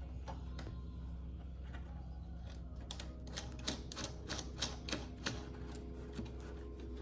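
Sharp metallic clicks from hand tools on the car's suspension parts, in an uneven run of about three or four a second through the second half, over a steady low hum.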